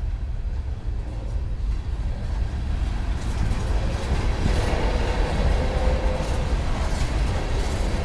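Norfolk Southern freight train passing, a steady low rumble with the clatter and rail noise of the cars growing louder about three seconds in. A faint steady squeal sounds in the second half.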